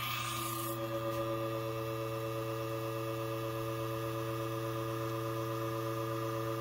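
Espresso machine pump running with a steady hum as a shot begins, with a brief hiss in the first second; no coffee is flowing from the portafilter spouts yet.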